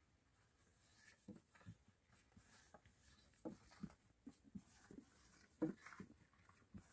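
Faint, soft, irregular thumps from a long, thin wooden rolling pin rolling out a large, thin sheet of flatbread dough on a cloth.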